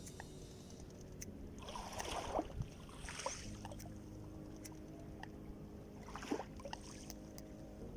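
Black Sea waves washing and splashing against the shore, in three surges: two close together about two and three seconds in, and a shorter one near the end.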